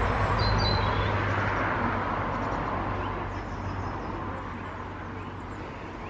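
Outdoor rushing noise with a low hum underneath, fading slowly, and a few faint high bird chirps.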